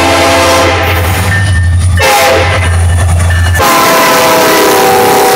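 Norfolk Southern diesel locomotive's air horn sounding a loud chord in blasts as the lead unit passes close by, with the low rumble of the diesel engines under it. The horn fades about a second in, gives a short blast near two seconds, then comes back strongly for a long blast from about three and a half seconds in.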